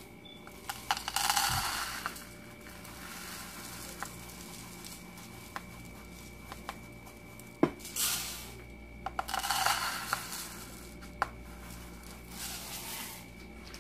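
Dry uncooked white rice poured from a plastic measuring cup into an empty nonstick saucepan. The grains hiss and rattle against the pan in about four short pours, with a few sharp clicks of the cup or grains on the pan.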